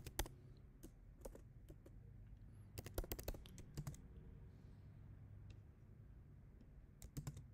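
Computer keyboard being typed on in short bursts of keystrokes, with a pause of a few seconds in the middle before a last burst near the end. A faint steady low hum runs underneath.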